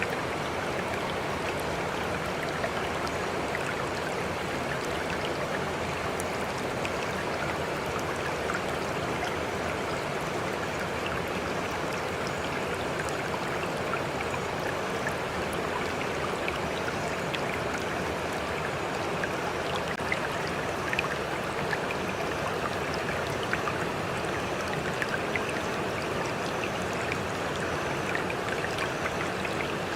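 Water running steadily, a continuous babbling rush flecked with small splashes and drips.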